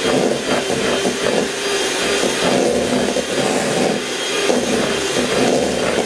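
Electric hand mixer running steadily, its beaters whipping softened butter in a stainless steel bowl.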